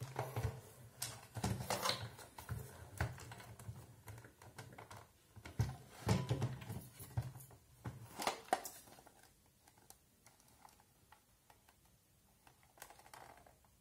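Plastic clicks and knocks from the hard plastic housing of a rechargeable spotlight being handled and its lamp head worked loose, scattered over the first nine seconds or so, then almost nothing but a couple of faint ticks.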